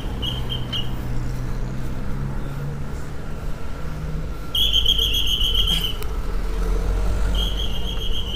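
Road and wind rumble from a moving bicycle, with a motor vehicle's engine hum in the first half. A high, fast-pulsing chirp comes in three bouts, loudest about halfway through.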